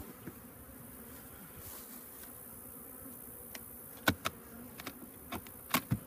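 Honeybees buzzing in a steady hum around an opened hive. A few sharp knocks and clicks come about four seconds in and again near the end, from the wooden hive box being handled to lift it off.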